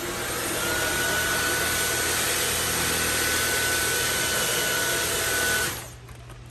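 Samsung Jet 60 Fit cordless stick vacuum running on its medium power setting: a steady rushing hiss with a thin high whine, growing louder over the first second and switching off suddenly near the end.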